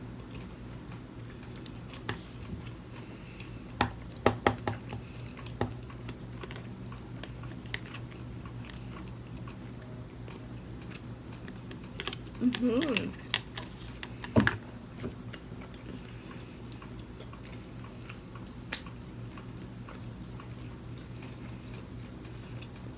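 A person chewing sushi, with scattered clicks and taps a few seconds in and again near the middle, and a short hummed voice sound about halfway through, over a steady low hum.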